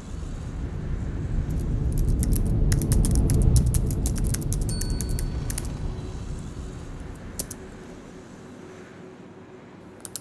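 Low rumble of a passing vehicle, swelling to a peak about three and a half seconds in and then fading away, with a run of sharp clicks in the middle.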